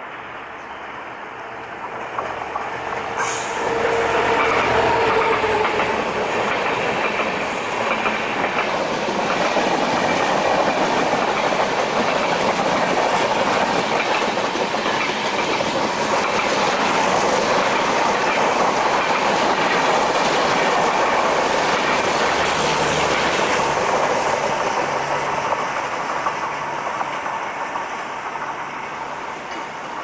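An EMD GT42ACL diesel-electric locomotive and its LHB passenger coaches passing at speed: a low engine drone as the locomotive goes by in the first few seconds, then a long rush of wheels on rail with clickety-clack over the rail joints, fading near the end as the train moves away.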